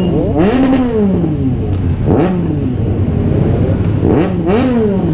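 Big motorcycles idling in a bunched group, with an engine revved in three short throttle blips, each rising in pitch and falling back.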